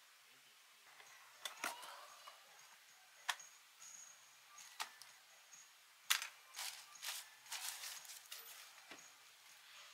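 Unboxing handling sounds: plastic wrapping crinkling with scattered sharp taps and clicks as the Royal Kludge RK98 barebone keyboard's plastic case and its bagged tools are lifted and handled, the taps coming thickest in the second half.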